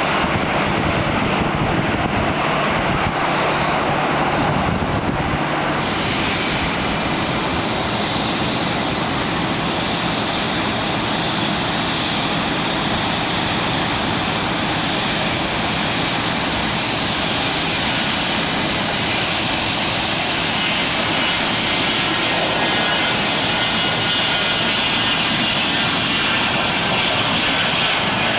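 Aircraft engines running with a high whine that sets in about six seconds in and slowly falls in pitch near the end, over a steady dense hiss that fits heavy rain.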